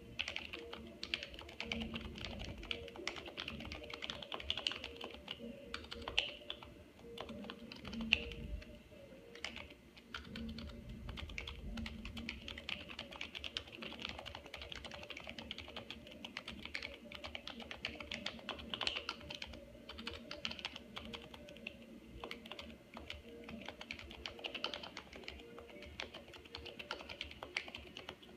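Continuous touch-typing on a Happy Hacking Keyboard Professional 2 Type-S, its silenced Topre electrostatic-capacitive keys producing a dense, irregular stream of key presses, with a short lull about nine seconds in.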